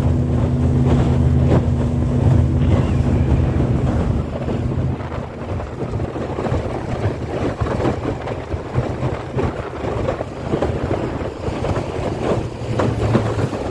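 Rushing water with wind buffeting the microphone. A steady low hum sits under it for the first four seconds or so and comes back near the end.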